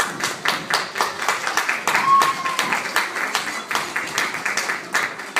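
Audience clapping in a hall, many hands in quick irregular claps, with a short voice-like tone about two seconds in.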